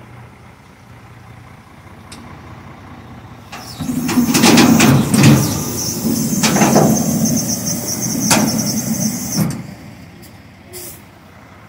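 Semi truck moving the loaded container trailer: a low engine hum, then about six seconds of loud engine rumble mixed with hissing and squeals, and a short hiss near the end.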